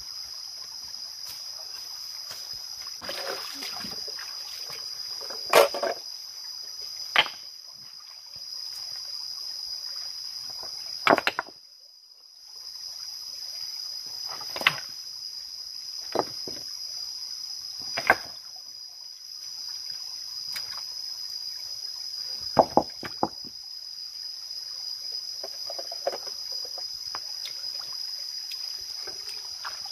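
A steady high-pitched drone of jungle insects such as cicadas, with scattered sharp knocks and light splashes of stones being shifted and bare feet on a rocky stream bed. The drone drops out briefly near the middle.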